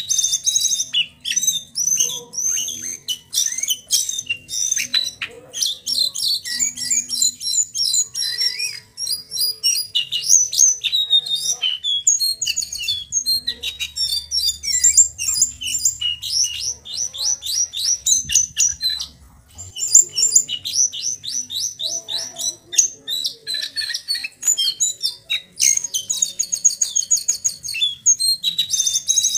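A young male brown jongkangan, in spotted juvenile plumage, singing almost without a break: fast high trills and rapid chattering notes, with a short pause about nineteen seconds in. It is a juvenile's practice song of rolls, chirps and whistled notes, the kind kept to teach or to provoke other jongkangan.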